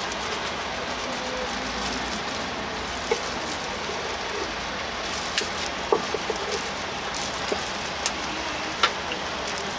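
A knife cutting through sundae and striking a wooden cutting board: a few sharp, irregular knocks over a steady hiss.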